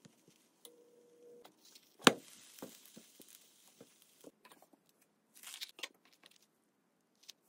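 Red silicone spatula and sandwich clattering in a nonstick frying pan as the grilled cheese is flipped, with one sharp knock about two seconds in and scattered lighter taps. Near the end, a brief crunchy scraping burst as the toasted bread is cut.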